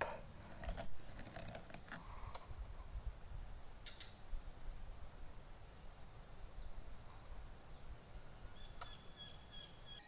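Steady high-pitched insect chirring, with a short knock about a second in and a few faint clicks.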